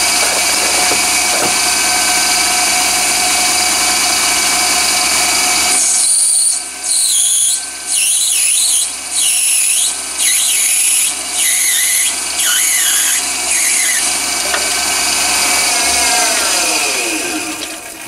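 Chinese mini lathe running with a steady motor and gear whine, while the cutting tool squeals against the spinning cone in about seven short strokes a second or so apart. Near the end the motor is switched off and the whine slides down in pitch as the spindle runs down.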